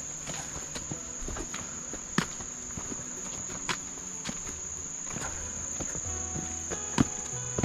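Insects keep up a steady high-pitched drone in the forest. Over it come a few sharp clicks, the loudest about seven seconds in, from trekking-pole tips and footsteps striking the stones of the trail.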